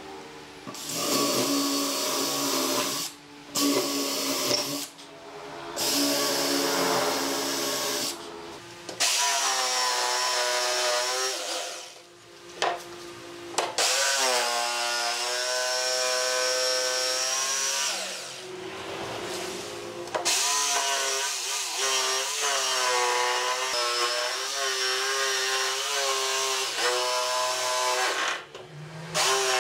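Power tools cutting a pine board. A drill runs in short bursts first, then a Makita 4327 jigsaw saws through the wood. The jigsaw's motor whine dips and recovers in pitch as the blade bites, and it stops and restarts several times.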